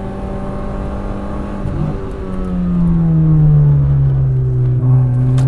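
Fiat Punto 1.2's four-cylinder petrol engine heard from inside the cabin. It holds steady revs, breaks off briefly about two seconds in, then its note falls gradually as the car slows for a chicane.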